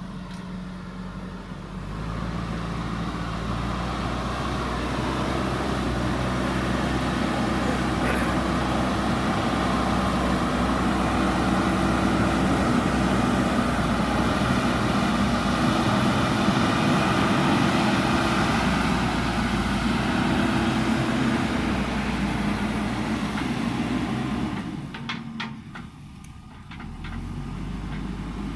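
JCB backhoe loader's diesel engine working under load, running up louder about two seconds in and holding steady, then dropping back briefly near the end before picking up again.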